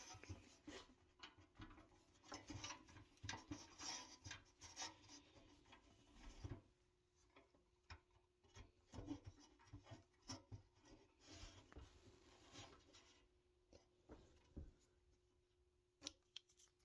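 Faint handling sounds of a steel axle rod and rubber-tyred toy wheels being fitted to a pressed-steel toy pickup: small irregular clicks and rubbing of metal on metal, thick at first and sparser after about six seconds in.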